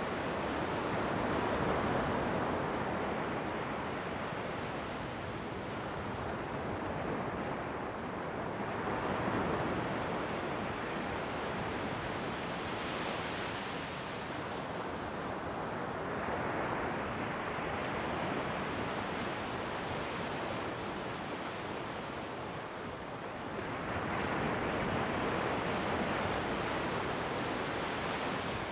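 Ocean waves surging and washing in, a slow rise and fall every several seconds with no break in the sound.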